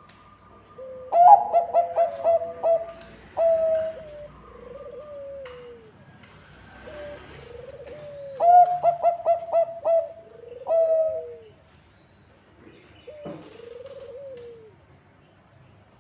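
Zebra dove (Bangkok-type perkutut) singing: two phrases of rapid staccato cooing notes, about a second in and again about eight seconds in, each ending in a short single coo. Softer, lower rising-and-falling coos come in between.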